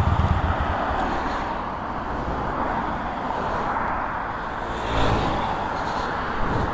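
Yamaha Bolt's air-cooled V-twin engine, its low pulsing fading within the first second as the throttle is closed, leaving steady wind and road noise with a brief louder swell about five seconds in.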